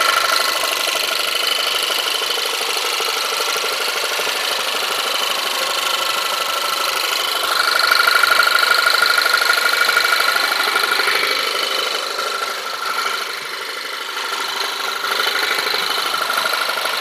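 Audi TT 1.8 TFSI four-cylinder turbo petrol engine running, with steady whining tones over it that swell a little partway through. It carries a strange background noise that the owner cannot place and fears may mean engine damage.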